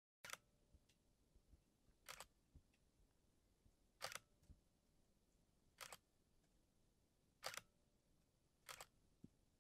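Faint camera-shutter clicks, six of them, one about every one and a half to two seconds, over near silence.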